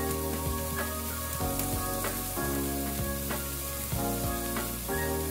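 Julienned vegetables (carrots, celery, cabbage and shiitake mushrooms) sizzling steadily in hot canola oil in a sauté pan, with occasional small pops. Background music of sustained chords that change about once a second plays under it.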